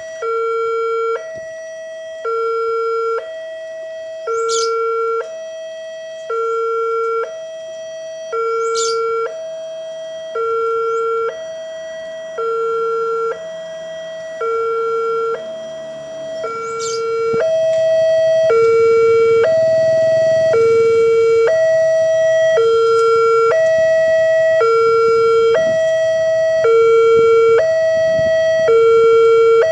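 Railway level-crossing alarm: an electronic two-tone warning that alternates between a higher and a lower tone about once a second, signalling that a train is coming. About halfway through, a low rumble builds and the whole sound grows louder as a train approaches the crossing.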